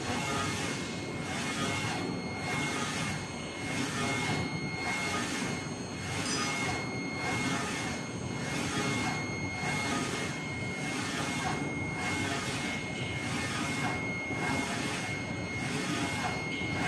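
UV flatbed printer printing: the print-head carriage sweeps back and forth across the bed, its noise swelling and dipping about once a second over a steady running hum. A thin steady high whine sits on top.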